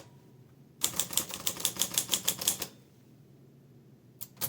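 Early-1950s Olivetti Lettera 22 manual portable typewriter being typed on: a fast run of about fifteen key strikes lasting about two seconds, then a pause and two single clicks near the end.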